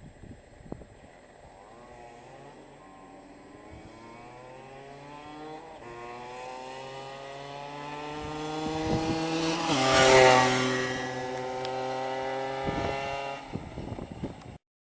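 Gilera RCR 50cc two-stroke motorbike engine accelerating, its note climbing steadily in pitch and growing louder. It is loudest about ten seconds in, where the pitch drops, then it holds steady before falling away and cutting off near the end.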